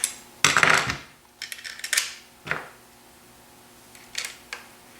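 Small metal clicks, clinks and a scrape from rifle bottom-metal parts, guard screws and a tool being handled as the trigger guard assembly is screwed back onto the stock. There is one louder scrape near the start, followed by scattered short clicks.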